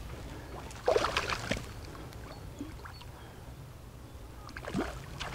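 Water splashing in two short bouts, about a second in and near the end, over a steady low rumble: a hooked trout thrashing at the surface as it is played on a fly rod.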